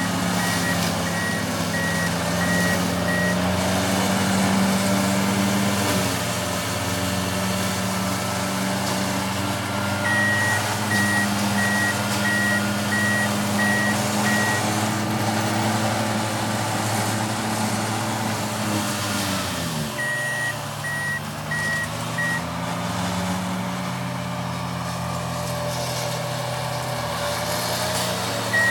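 Wacker Neuson ST45 skid steer's diesel engine running hard with an FAE forestry mulching head, its pitch dropping sharply about two-thirds of the way through as it comes under load. Its backup alarm beeps about twice a second in several spells as the machine reverses.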